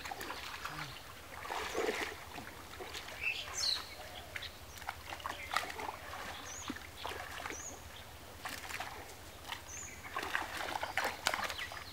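Water splashing and sloshing in irregular bursts as men wade through a shallow muddy pond and drag a hand-held fishing net through it.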